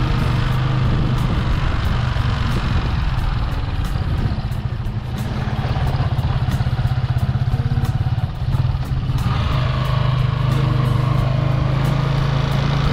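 An engine running steadily, with a constant low hum.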